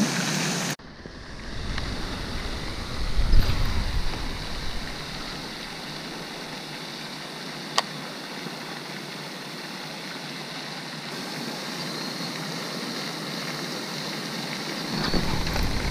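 Steady rushing of water from a pond's spray fountain, with wind buffeting the microphone in gusts about three seconds in and again near the end. A single sharp click sounds about eight seconds in.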